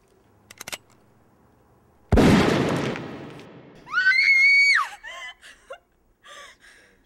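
A sudden loud bang that dies away over about a second and a half, then a woman screams for about a second and breaks into short gasping whimpers.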